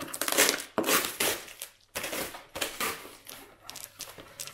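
Parcel packaging being handled and opened by hand: irregular crinkling, crushing and rustling, loudest in the first second or so.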